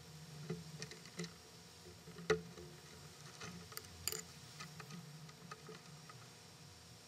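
Light clicks and taps of a kayak's sail rigging and fittings being handled, with one sharper knock about two seconds in and a small cluster of clicks a little later.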